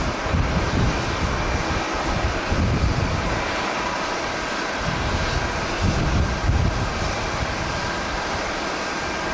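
Jet airliner engines running with a steady rushing noise and a faint whine, under irregular gusts of strong wind buffeting the microphone.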